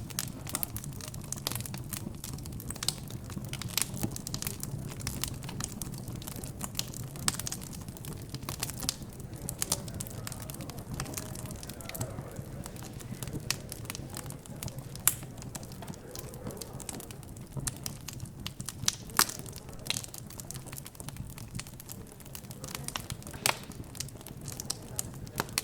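Fireplace fire crackling, with irregular sharp pops throughout. Under it runs a low murmur of background chatter.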